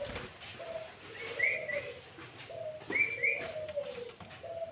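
A dove cooing in low, repeated, stepped notes. Over it come two pairs of short, clear higher notes, about a second and a half apart, typical of a sooty-headed bulbul (kutilang) calling.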